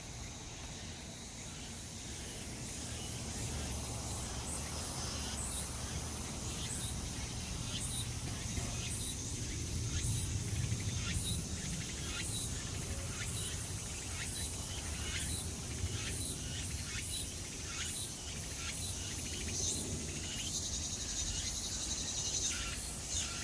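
Cicadas singing: a steady high buzz with short, sharp calls repeating about once a second from about five seconds in, growing louder at first and turning into a fast pulsing buzz near the end.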